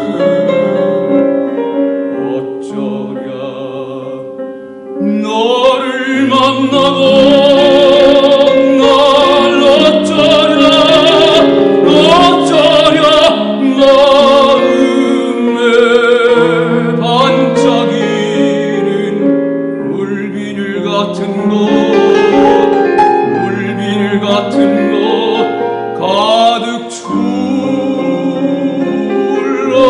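A tenor sings a Korean art song in classical operatic style, with vibrato, accompanied by piano. The music is softer for the first few seconds, then swells loud about five seconds in and stays full-voiced.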